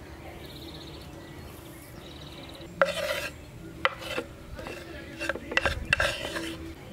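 Chopped green onions and herbs being scraped off a wooden cutting board into a wooden bowl. There is one loud rasping scrape about three seconds in, two knocks, then a run of shorter scrapes and rustles.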